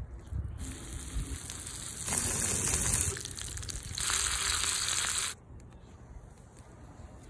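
Raw bacon strips sizzling as they are laid on a hot flat-top griddle, the hiss swelling in two louder spells and cutting off suddenly about five seconds in.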